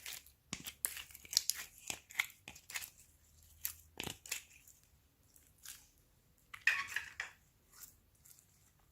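Hands squishing and stretching slime, making irregular sticky crackles and pops. They come thick and fast for the first few seconds, then thin out, with a louder burst of crackling about seven seconds in.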